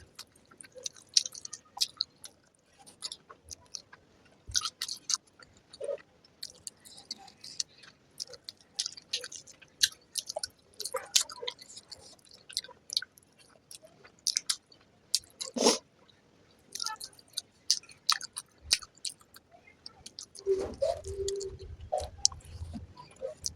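Close-miked chewing of a mouthful of fried rice, with irregular wet smacks and clicks of the mouth. One sharper knock comes a little over halfway through, and a fuller, lower stretch of chewing comes near the end.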